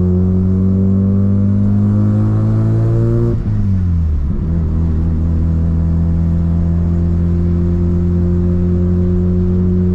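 Mazda RX7's streetported 13B rotary engine with a straight-pipe exhaust under way, its pitch climbing slowly as the car pulls. About three and a half seconds in the revs dip sharply and come back up within a second, then the engine runs on steadily with the pitch creeping up again.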